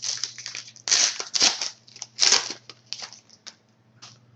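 Trading cards rustling and scraping as they are handled and slid one past another: a run of short crinkly scrapes, loudest about a second in and again just after two seconds, dying away near the end.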